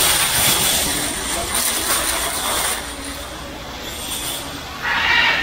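Hanging chain curtain rattling and clinking as people push through it, with a brief louder burst of rattling near the end.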